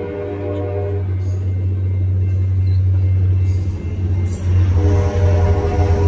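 Altamont Corridor Express push-pull commuter train passing through a grade crossing. The bi-level passenger cars roll past with a steady low rumble, then the trailing EMD F40PH-3C diesel locomotive pushes past, louder from about four and a half seconds in. A chord of horn tones sounds until about a second in and again near the end.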